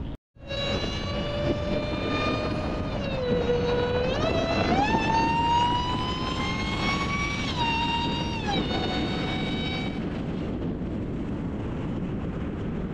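Supercharged Hellcat HEMI V8 under way, its supercharger whining loudly after a brief gap at the start: the whine holds steady, dips, then climbs in pitch with engine speed, drops once and fades out after about nine seconds, leaving steady engine and road noise.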